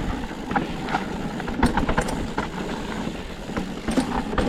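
Canfield Nimble 9 hardtail mountain bike on 27.5-plus tyres rolling over a rough, slippery dirt trail: a steady noise of tyres on dirt, broken by irregular clicks and rattles from the bike jolting over bumps.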